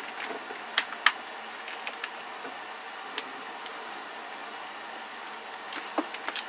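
Scattered light clicks and taps of plastic parts being handled under a car's dashboard, the sharpest about a second in, over a steady hiss of room noise.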